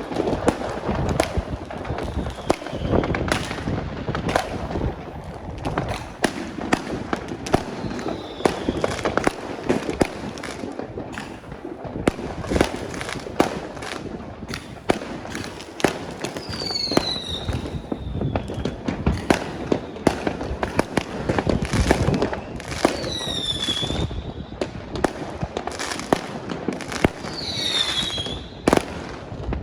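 Fireworks going off in a dense run of bangs and crackling pops. Three short falling whistles come in the last half.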